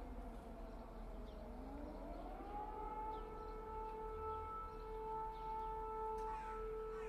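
Civil defense siren wailing. Its tone slides down, then about two seconds in it rises over roughly a second and holds a steady pitch.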